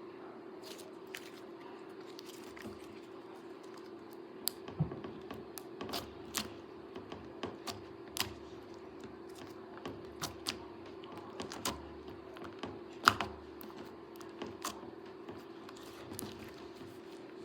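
Silver-blue slime being pressed and worked by hand, giving irregular sticky clicks and small pops, with one sharper pop about 13 seconds in, over a steady low hum.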